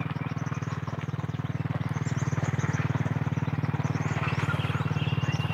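A small engine running steadily, a low even drone with a fast regular pulse, with faint high chirps above it.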